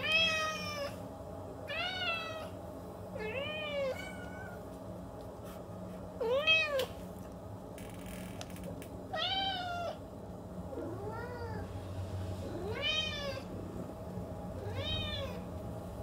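Siamese cat meowing over and over: about eight drawn-out meows, each rising then falling in pitch, roughly two seconds apart, over a faint steady hum.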